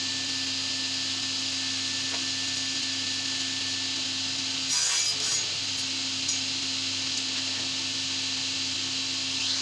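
Wood Styler sliding table panel saw running with a steady hum and hiss. About five seconds in, the blade cuts through a wooden plank: a brief, louder rough sawing burst as the motor takes the load.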